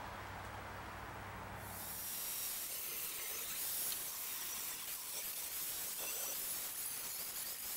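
From about two seconds in, a small angle grinder's cut-off wheel cutting through steel frame tubing with a steady high grinding rush. Before that there is only a low hum.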